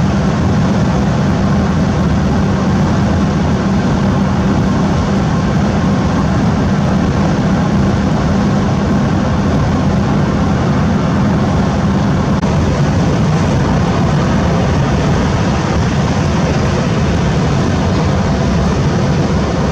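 Fiat Ducato campervan driving, with a steady drone of engine and road noise heard from inside the cab.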